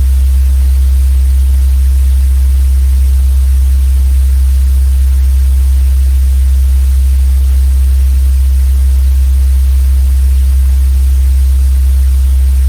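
Loud steady low hum with static hiss over it, unchanging throughout and cutting off abruptly at the very end.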